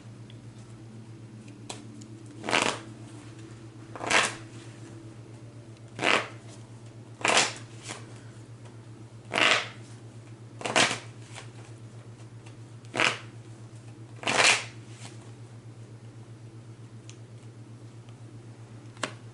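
Tarot cards being shuffled by hand: about eight short swishes of the deck a second or two apart, stopping a few seconds before the end, over a steady low hum.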